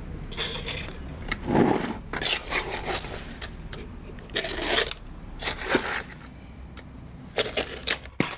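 Steel pointing trowel scraping wet sand-and-cement mix from a bucket and packing it into a flower pot: a string of short, gritty scrapes, with a couple of sharp taps near the end.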